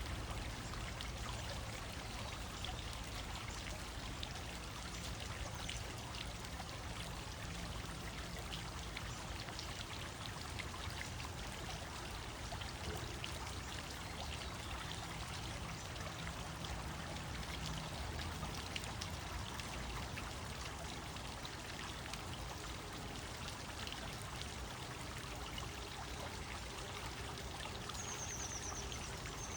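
Water fountain splashing and pouring steadily. A bird gives a short run of high chirps near the end.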